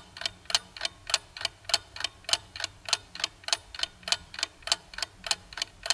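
Clock-ticking sound effect used as a quiz answer timer: a steady, even tick-tock of about three and a half ticks a second.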